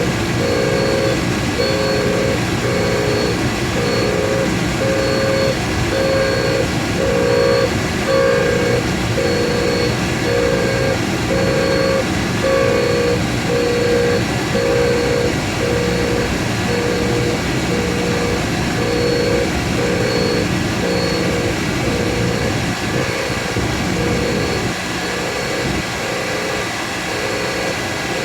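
Surface grinder running with its aluminum oxide wheel loaded with rouge and wax, taking a final finishing pass over a steel part. A steady machine hum carries a ringing tone that pulses about once a second, and the low end eases near the end.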